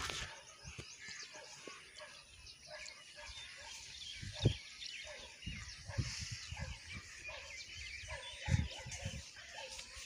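Outdoor ambience of many small birds chirping and twittering, with a few low thumps on the microphone, the loudest about four and a half seconds in and again near the end.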